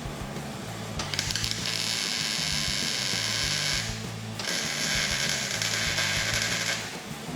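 Welding on a truck frame: two bursts of steady crackling hiss, each starting and stopping sharply as the welder's trigger is pulled and released. The first runs nearly three seconds, the second about two and a half, with a short break between them.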